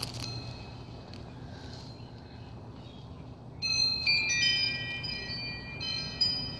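Bell-like chimes ringing over a low outdoor background: one faint high note at the start, then several high notes sounding together about three and a half seconds in and ringing on, overlapping.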